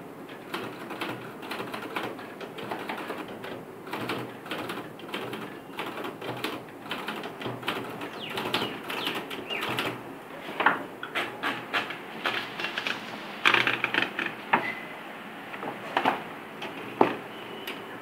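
Manual typewriter being typed on: a quick, uneven run of key strikes, with a few sharper, louder strikes in the second half.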